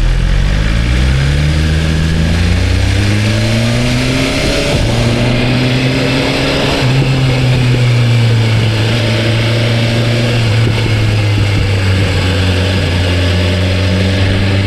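BMW S1000RR's inline-four engine through its stock exhaust under way on the road, rising in pitch as it accelerates for about the first four seconds, then running at a steady speed.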